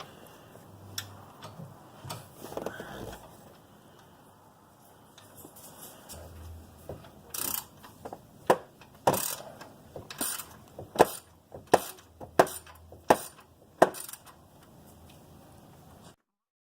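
Hand tools working on the serpentine belt tensioner bolt, giving a run of sharp metallic clicks about one every two-thirds of a second, starting about seven seconds in and stopping about fourteen seconds in.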